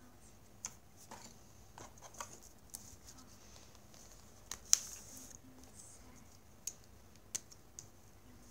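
Faint scattered clicks and taps of a small plastic motor assembly being set down and a pen being picked up on a desk, with one sharper click a little past halfway. Near the end comes a soft scratching of a pen writing on paper.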